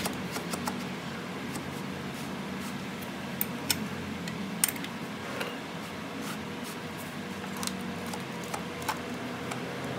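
A steady low machine hum with scattered light clicks and taps; the sharpest click comes about four and a half seconds in.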